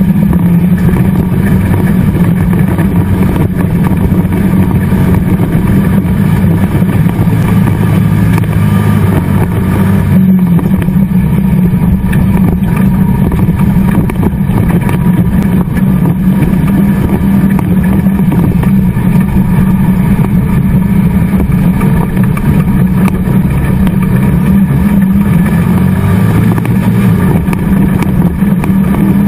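Race car engine running hard at high revs, heard loud from inside the stripped cockpit, its note rising and falling as the car is driven round a dirt track. A single sharp knock about ten seconds in.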